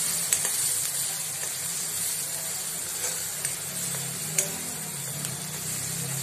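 Onion, tomato and spice masala sizzling in oil in a kadhai while a spatula stirs it, with a few sharp taps of the spatula against the pan, one shortly after the start and one about four and a half seconds in.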